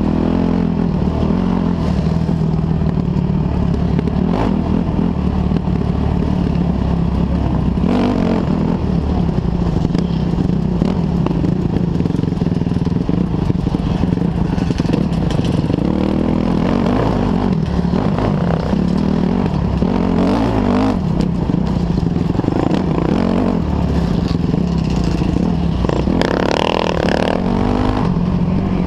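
Dirt bike engine running hard, its pitch rising and falling as the throttle opens and closes on a rough singletrack trail. There are a few sharp knocks from the bike over the ground, and a scraping burst near the end.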